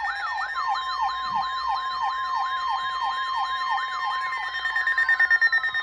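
Electronic yelp siren alert tone: a fast up-and-down wail about four times a second over a steady high tone. Near the end the wail gives way to falling glides and a rapid high beeping.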